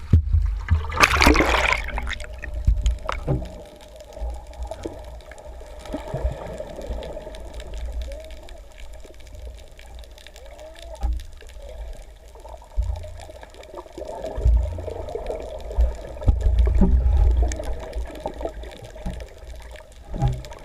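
Water sounds with a constant low rumble, a loud splash-like burst about a second in, and swells of louder rumbling later on.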